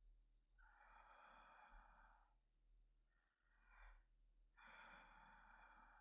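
A man's soft, slow breathing close to the microphone, like a man dozing. There are two long breaths of about a second and a half each, with a short breath between them.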